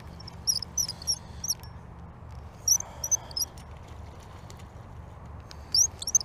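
Spinning reel squeaking as its handle is cranked to reel in a hooked fish: short, high squeaks come in quick runs of several at a time, with pauses between the runs.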